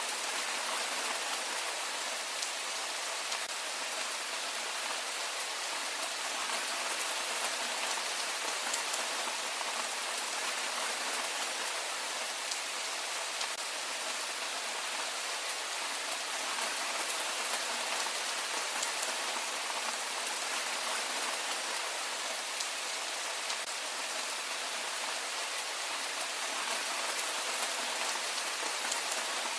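Heavy rain falling steadily, an even hiss of countless drops with faint scattered patters of individual drops.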